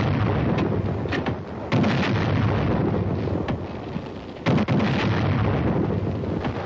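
Field artillery firing and shells bursting: a dense, continuous rumble of blasts, with sharp louder reports about two seconds in and again about four and a half seconds in.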